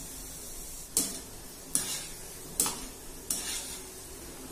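Peanuts frying in hot oil in a kadhai with a steady sizzle, while a wire skimmer stirs them and scrapes against the pan four times in an even rhythm.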